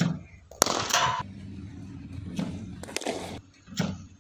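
Cricket bat striking a ball: two sharp cracks about two and a half seconds apart, with shorter noisy bursts between them.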